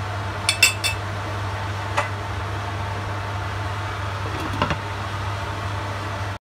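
A metal spoon clinking against a cooking pot of stew, then a glass pot lid set down onto the pot with a couple of clinks about four and a half seconds in, over a steady low hum.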